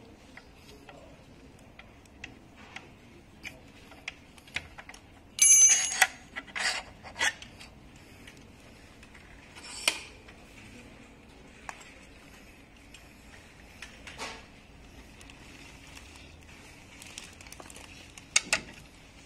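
Hand tools working on an HB23 electric scooter's metal stem and folding joint: an Allen key and a screwdriver clicking and clinking against the parts. A loud ringing metal clatter comes about five seconds in, with more sharp clinks and knocks scattered through, the loudest of them near the end.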